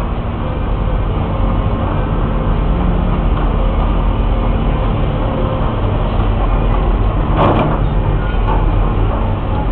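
Tracked hydraulic excavator's diesel engine running steadily as the machine swings and works its boom, with a single sharp knock about seven and a half seconds in.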